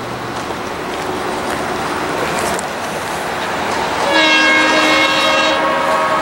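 EMD GP10 diesel locomotive approaching with its train, its running noise growing steadily louder. About four seconds in, it sounds its air horn, a chord of several tones held for about a second and a half, and the horn sounds again just before the end.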